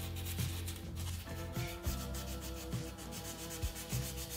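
Hand sanding of dried stone-powder clay with fine #400 sandpaper: quick, even back-and-forth scratchy strokes, over background music.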